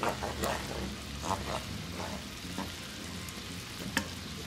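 Wooden spoon stirring a thick ground-beef tomato sauce in a pot: irregular wet, squelching scrapes that thin out after about two and a half seconds, over a steady low hum. A single sharp tap comes near the end.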